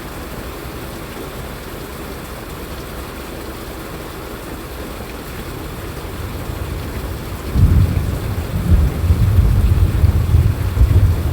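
Steady rain falling. About seven and a half seconds in, a deep rumble of thunder sets in and rolls on, louder than the rain.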